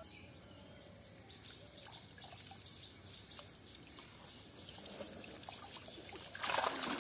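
Water dripping and trickling off a cast net as it is hauled in by hand from a shallow pond, then louder splashing and sloshing near the end as the weighted net is dragged out of the water.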